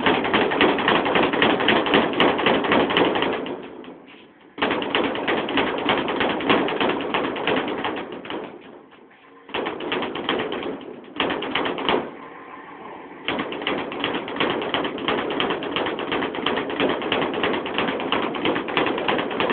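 Speed bag being punched in fast, steady flurries, the bag rattling against its overhead rebound platform in a rapid rhythm. The rhythm stops briefly a few times and then picks up again.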